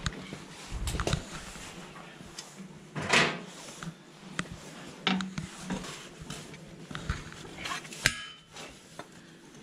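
Metal hand tools working on the underside of a tractor: a spanner clinking against bolts and metal parts, heard as irregular clicks and knocks with a few louder clatters.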